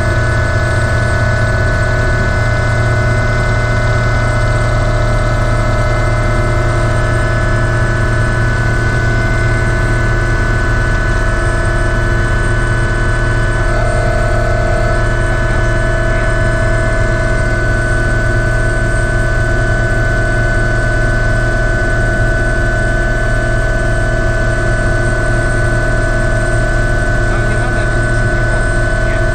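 Ultrasport 555 helicopter's turbine engine and rotor running in steady flight, heard inside the cockpit: a loud constant low drone with several steady high-pitched tones over it.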